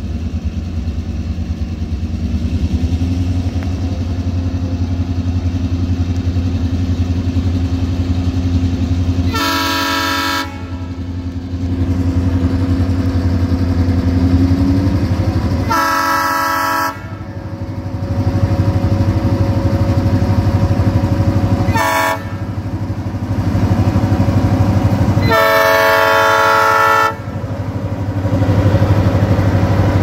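Diesel locomotive's multi-chime air horn sounding the grade-crossing signal, long, long, short, long, with several notes at once in each blast. The locomotive's diesel engine rumbles steadily underneath and grows louder near the end as it reaches the crossing.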